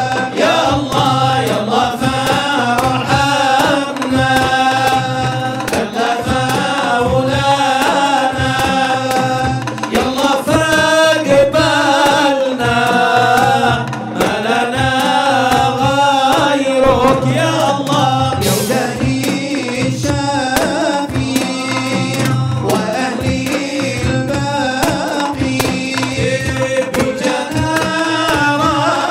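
Male voices singing an Arabic qasidah, a devotional song in praise of the Prophet, with a melismatic sung line over hand-held frame drums beaten in a steady rhythm.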